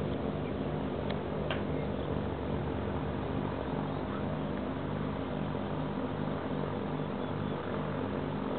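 Robin R2160 light aircraft's piston engine and propeller droning at low power as it rolls out on the runway after landing, the engine note wavering up and down.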